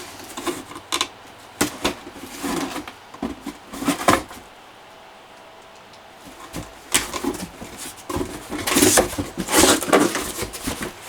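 Cardboard model-kit box being handled and moved out of the way: a few sharp knocks and taps, a quieter stretch midway, then longer scraping and rubbing of cardboard near the end.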